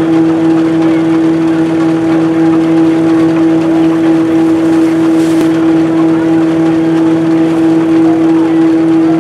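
Vintage wooden threshing machine running at working speed, belt-driven by a tractor: a loud, steady hum at one constant pitch over a rough mechanical rattle.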